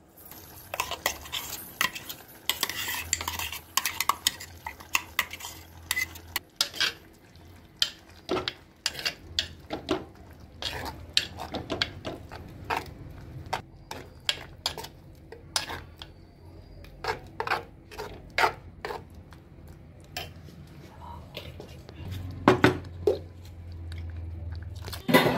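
Steel spoon clinking, knocking and scraping against a clay curry pot as ground coconut paste is scraped in and stirred through the curry, in irregular taps throughout.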